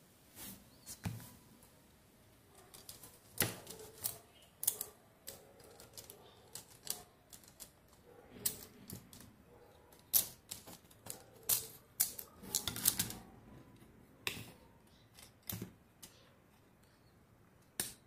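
Irregular small metallic clicks and clinks of brass clock parts being handled as an antique mechanical alarm clock movement is taken apart, its top plate lifted off and its wheels picked out by hand.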